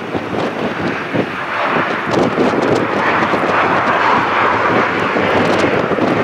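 Transavia Boeing 737 jet rolling out on the runway just after touchdown. Its engine noise swells about two seconds in and then holds as a loud, steady roar.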